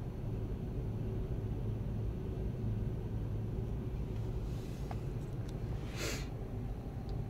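Ryko Radius touchless car wash spraying water over a minivan, heard muffled from inside the cabin as a steady low rumble. A short, sharp hiss comes about six seconds in.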